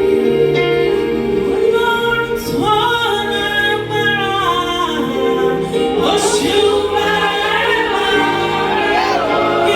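Gospel worship song: a singer holds long, sliding notes over steady instrumental backing.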